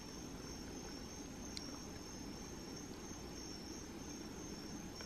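Crickets chirping in a steady, unbroken high-pitched trill over a faint hiss, with one small click about a second and a half in.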